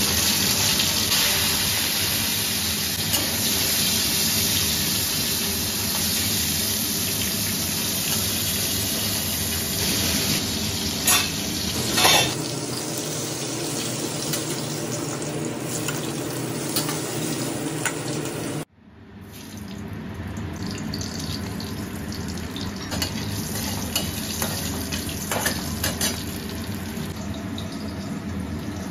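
Hilsa fish head frying in hot mustard oil in an aluminium kadai: a steady sizzle, with a couple of sharp clinks of a metal spatula against the pan about 11 and 12 seconds in. The sizzle cuts out for a moment about two-thirds of the way through, then carries on a little quieter.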